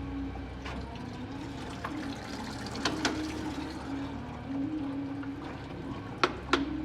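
Engine oil from an Audi Q7 3.0 diesel draining out of the sump into a drain pan, over a steady hum, with a few sharp clicks about three seconds in and near the end.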